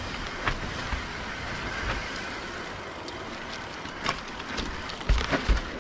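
Mountain bike riding down a rough trail: a steady rush of tyres and wind with the bike clattering and rattling over the ground, and a few heavy thumps near the end.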